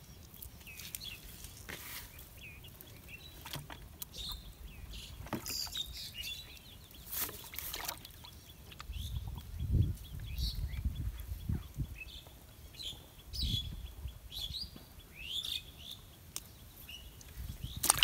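Birds chirping here and there, over clicks, rustles and low bumps from a caught fish being handled and unhooked over a plastic bucket.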